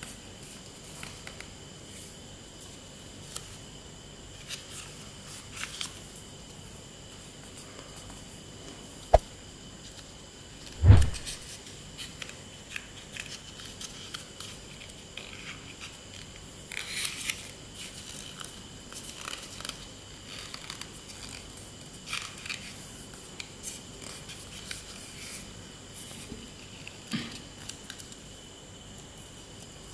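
A sheet of paper being folded and creased by hand against a tabletop: soft, intermittent rustling and scraping of paper. There is a sharp click about nine seconds in, and a dull thump about eleven seconds in that is the loudest sound.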